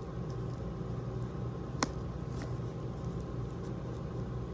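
A steady low hum with a few faint ticks and one sharp click a little under two seconds in, from fingers picking at the plastic seal on a cardboard box.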